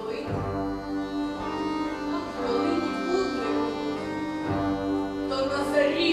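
A bandura ensemble playing held, sustained chords, with a woman's solo voice singing over it, rising and growing louder near the end.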